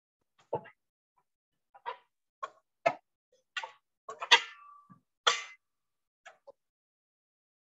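A string of short, irregular knocks and clicks, the loudest a little past the middle, followed by a brief ringing tone.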